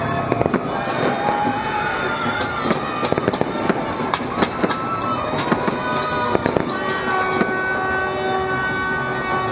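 Street firecrackers and fireworks going off in irregular sharp bangs, many in quick succession. From about seven seconds in, a held tone runs under them.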